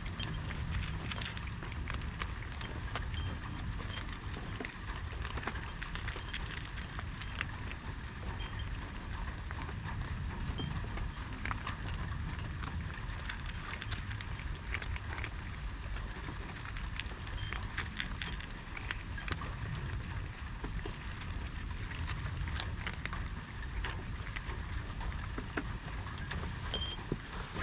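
Scattered small clicks and ticks over a steady low rumble, with one sharper click near the end.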